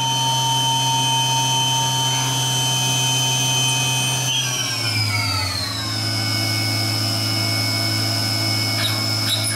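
Syil X7 CNC milling machine running a drilling/tapping cycle under flood coolant, its spindle giving a steady whine over the hiss of coolant spray. About four seconds in the whine falls in pitch as the spindle slows, then holds steady at the lower speed.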